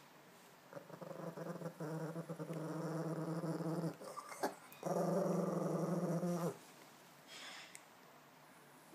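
Tibetan spaniel growling steadily in two long stretches, the first about three seconds and the second, louder one about a second and a half, with a brief sharp sound between them.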